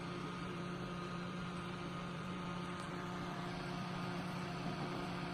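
Two small portable electric desk fans running, a steady whir with a constant hum.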